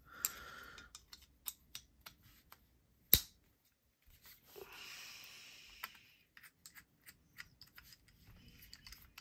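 Small clicks and rubs of black G10 handle scales being fitted back onto a steel fixed-blade knife's tang, with one sharp clack about three seconds in and a brief rustle. Near the end come light ticks as a scale screw is driven in with a small screwdriver.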